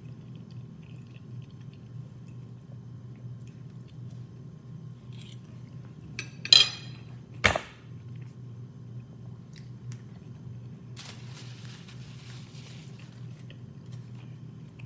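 Dishware clinking while eating: two sharp clinks about six and a half and seven and a half seconds in, then a few seconds of soft rustling, over a steady low hum.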